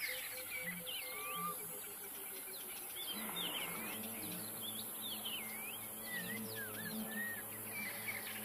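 Wild birds calling, many short whistled notes that swoop up and down, over soft background music with low held notes.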